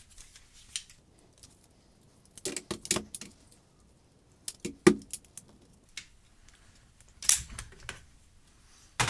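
Metal clicks and light rattles from the parts of a Colt M4 .22 rifle as its takedown pins are pushed out and the upper and lower receivers are worked apart. The sound comes in several short clusters of clicks, the loudest just under five seconds in.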